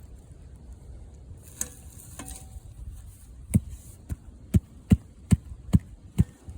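Two light metallic clinks, then a run of about seven dull thuds, roughly two a second, from hands working a trap set into the dirt.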